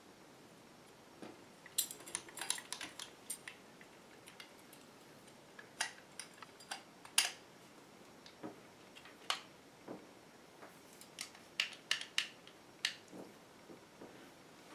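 Small metal parts of a CO2 replica revolver clicking and clinking as they are handled and fitted together by hand, in scattered clusters of sharp ticks.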